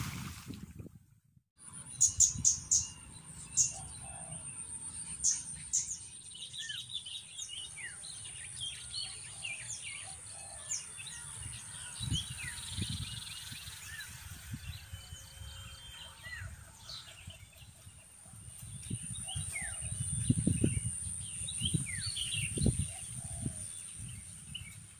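Open-country ambience: many small birds chirping and calling over a steady high-pitched whine, with low rumbles now and then.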